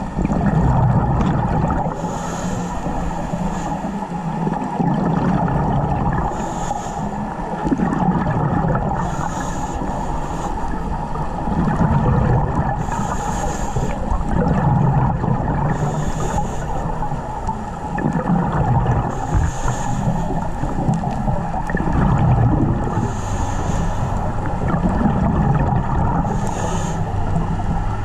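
Scuba regulator breathing picked up underwater through a camera housing: exhaled bubbles every three to four seconds over a steady water rush.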